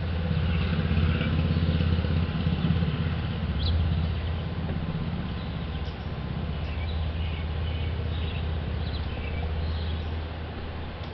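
A motor vehicle's engine rumbling low, loudest in the first few seconds and then easing off, with faint short bird chirps over it.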